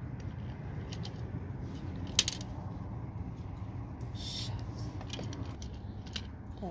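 Plastic Connect Four discs dropping into the grid: a few sharp plastic clicks, the loudest about two seconds in, over a steady low background noise.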